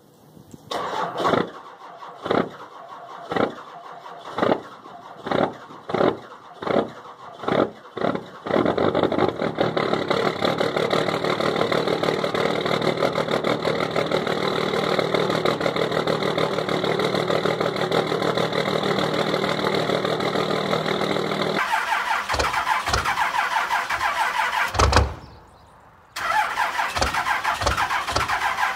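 Cold Cummins diesel in a Dodge Ram pickup cranking over in slow, separate heavy beats about once a second for some eight seconds, then catching and running steadily. After a cut, a second Cummins diesel truck is cold-started, running rough and uneven with a brief drop-out near the end.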